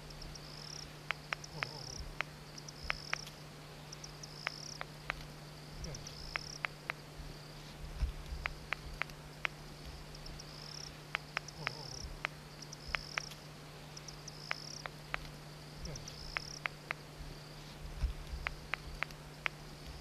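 Eurasian eagle-owl chick snapping its bill: sharp clicks in quick runs of two to four, a defensive threat sound. Behind them, a short high chirp repeats about once a second.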